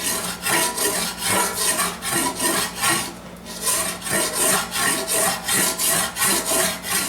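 Coarse hand file drawn in strokes across the dented sheet-metal panel, about two strokes a second with a short pause about three seconds in. The filing is to show the high spots and how bad the localized dent damage is before leading.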